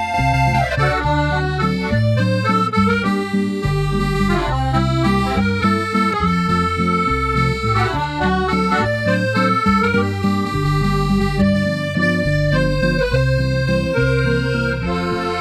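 Background music: a melody of changing pitched notes over a steady, repeating bass line.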